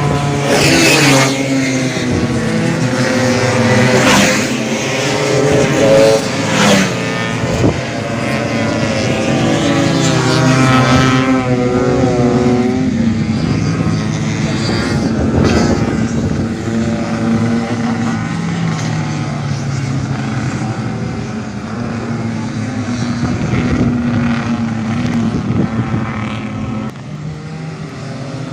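Tuned two-stroke Vespa racing scooter engines revving hard, their pitch rising and falling over and over, with more than one engine sounding at once in the first half.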